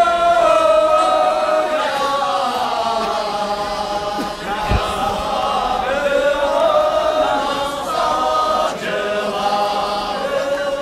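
A group of Sherpa voices singing a chant-like sherbu folk song in unison, with long held notes that slide slowly up and down. A single dull thump sounds about halfway through.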